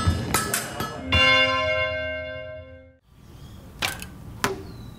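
A single struck, bell-like tone that rings out and fades for about two seconds, then cuts off abruptly. Two sharp clicks follow near the end.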